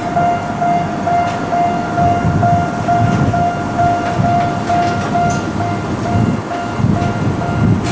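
Japanese level-crossing warning bell ringing, an electronic tone repeated at an even beat, while a Tokyo Metro Ginza Line 1000 series train rumbles across the crossing, its wheels knocking over the rail joints several times.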